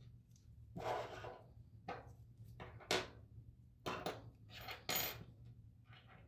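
Small metal parts handled on a hard surface: a handful of separate scrapes and clinks, with a sharp metallic clink about three seconds in and another near five seconds, over a steady low hum.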